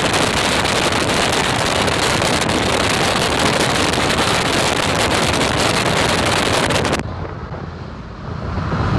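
Wind rushing over a phone's microphone held out the window of a moving vehicle, mixed with tyre and road noise. About seven seconds in the rush cuts off abruptly as the phone comes back inside the cab, leaving a quieter, low vehicle hum.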